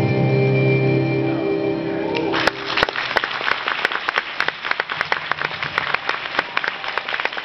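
Dance music holds its final chord and stops about two and a half seconds in, and the audience then applauds with dense, uneven clapping.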